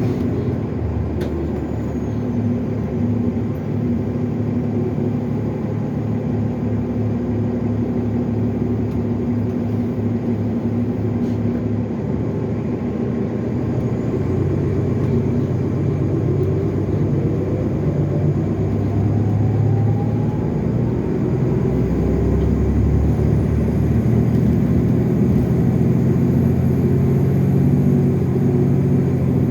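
Cummins ISL9 diesel of a NovaBus LFS Artic hybrid bus running under way, heard from on board as a steady low drone. A whine rises in pitch over several seconds midway, and a thin high whine comes in near the end, like the turbo whine the bus is known for.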